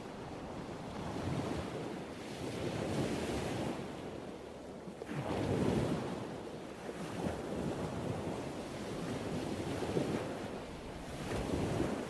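Ocean surf: waves breaking and washing in, swelling and easing in slow surges, the biggest a little past the middle.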